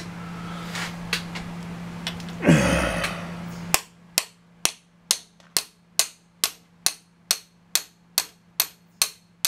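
Hammer tapping on a motorcycle piston to drive it down into the cylinder, a steady run of sharp taps about two a second from the middle on. Before the tapping there is a steady hum and a brief loud rustle.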